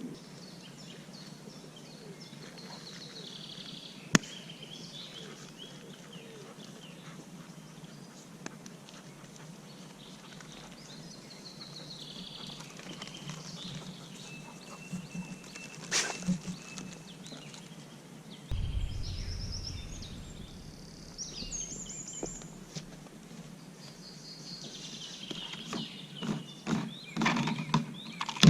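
Small birds chirping in woodland, with one held whistled note partway through. Scattered sharp clicks and snaps come in, clustering near the end, and a low rumble sets in about two-thirds of the way in.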